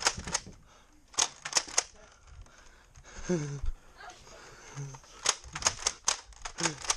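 Foam-dart Nerf blasters firing: sharp pops, three in quick succession about a second in, then a fast run of shots in the last two seconds.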